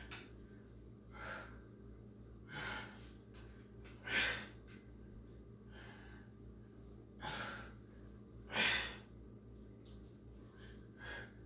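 A woman breathing hard during toe-reach crunches: short, sharp breaths, about six of them one to three seconds apart, two of them louder.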